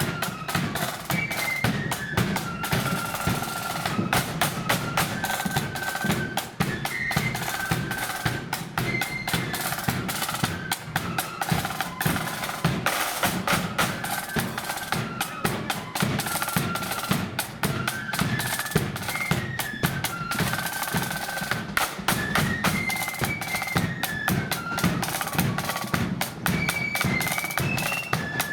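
Blood-and-thunder flute band playing a march: flutes carry a stepping melody over rapid snare-drum rolls and a bass drum.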